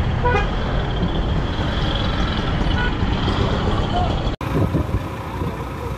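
Congested street traffic heard from a motorbike moving through a jam: the engines of motorbikes and three-wheeled auto-rickshaws under a heavy low rumble, with crowd voices mixed in. About four and a half seconds in the sound cuts out for an instant and comes back quieter.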